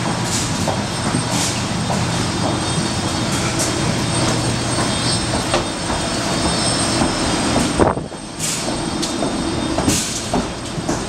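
Steady mechanical hum with a thin high whine, the ambient noise of aircraft and ground equipment heard inside an airport jet bridge, with irregular clicks of footsteps and luggage as passengers walk through it. A sharp knock about eight seconds in, after which the noise briefly drops.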